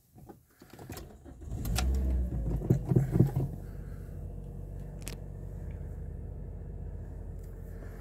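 A 2010 Toyota Corolla's 1.8-litre four-cylinder engine cranking and starting about two seconds in, then running at a raised idle that eases down slightly. It runs smoothly with no misfire now that the faulty cylinder 1 ignition coil has been replaced.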